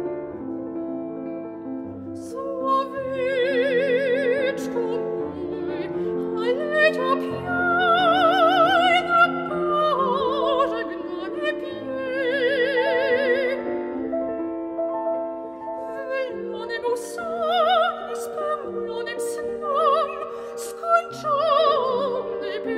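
Coloratura soprano singing a Polish art song with piano accompaniment. The piano plays alone at first, and the voice enters about two and a half seconds in with a wide vibrato on held, high notes.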